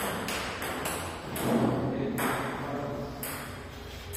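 Table tennis ball bouncing, a few sharp pings at uneven intervals while a player readies a serve.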